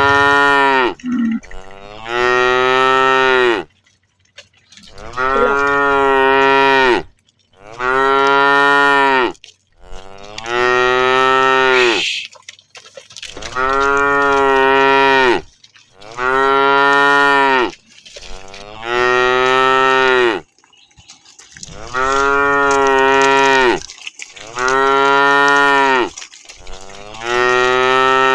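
Cows mooing, with a long call every two to three seconds and about ten calls in all.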